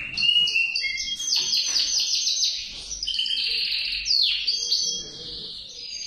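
Male canary singing: a fast run of rapid trills and quickly repeated downward-sliding chirps, high and continuous, easing a little near the end.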